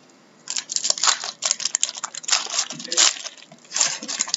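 Trading-card pack wrappers being torn open and crinkled, in quick, irregular bursts that start about half a second in.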